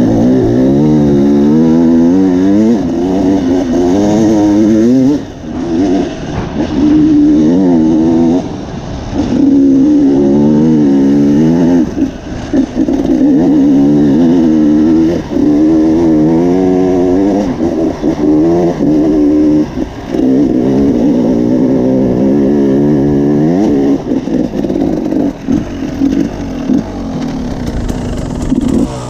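Enduro dirt bike engine under way, its pitch rising and falling over and over as the throttle is worked, with short drops in level where the throttle closes.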